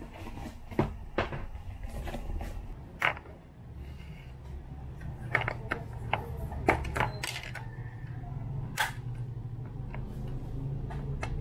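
Metal cans of luncheon meat handled: sharp clicks and taps as the tins are set down, then fingers working and lifting the ring-pull tab on a can's lid. Scattered single clicks over a low steady hum.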